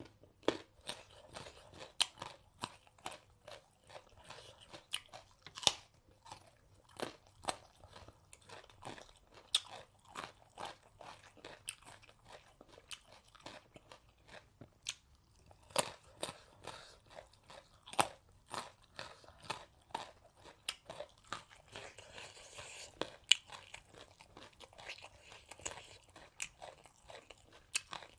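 Close-miked chewing with a steady irregular run of sharp crunches, a few a second: a person eating a meal of dhindo with salad and green chillies, biting into crisp food.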